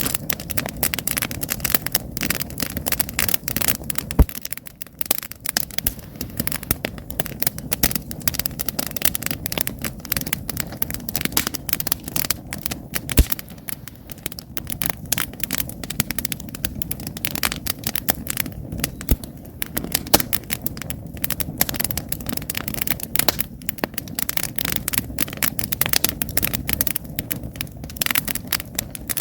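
Wood campfire burning, logs crackling continuously with many small irregular snaps and an occasional sharp pop, the loudest about four seconds in, over a low steady rumble of the flames.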